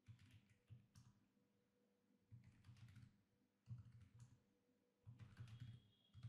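Very faint computer keyboard typing: four short runs of keystrokes separated by pauses.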